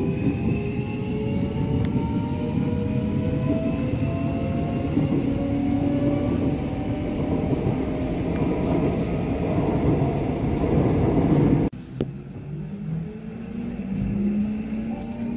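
Busan subway electric train heard from inside the car as it picks up speed: a motor whine rising steadily in pitch over the rumble of the wheels on the rails. About twelve seconds in the sound cuts off abruptly, and a quieter rising whine starts again.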